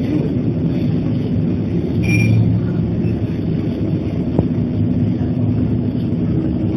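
Diesel engine of a double-decker city bus, heard from inside the bus, running steadily at low speed in traffic. There is a brief high beep about two seconds in and a single click a little past the middle.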